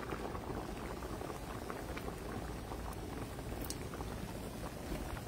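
Large pot of chicken soup at a rolling boil with its lid off, bubbling steadily.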